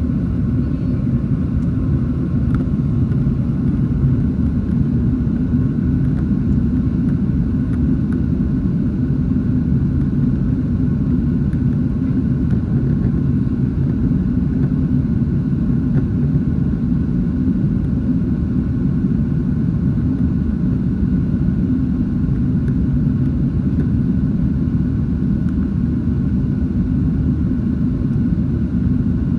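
Cabin noise of a Southwest Airlines Boeing 737 during the climb after takeoff: a loud, steady low rumble of the jet engines and rushing air, with a faint steady whine above it.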